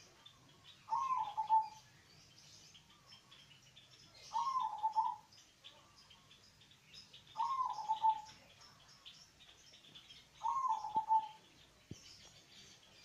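Local zebra dove (perkutut) cooing in its cage: four call phrases about three seconds apart, each a short higher note dropping into a quick run of lower coos. Faint high chirping runs underneath.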